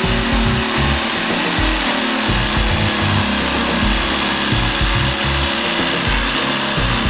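Corded electric jigsaw cutting through an MDF board, the motor running steadily while the blade saws through.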